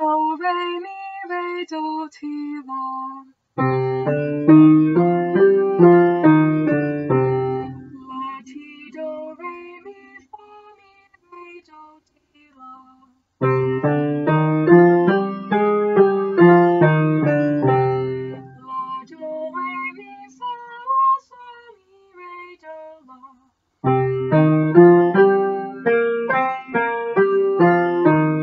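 A woman's voice sings a C minor scale in solfège, note by note, and then an upright piano plays the scale up and back down with both hands. This happens three times, and the piano is louder than the singing.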